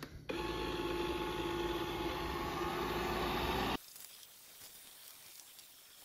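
Proscenic M7 Pro robot vacuum running: a steady whirring hiss from its suction fan and brushes, with a few held tones. It cuts off abruptly about four seconds in, leaving only a faint background.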